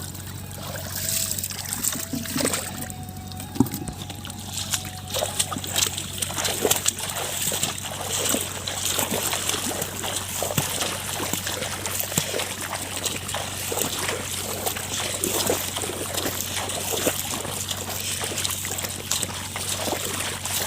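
Shallow water splashing and sloshing in a steady run of small, irregular splashes with some trickling.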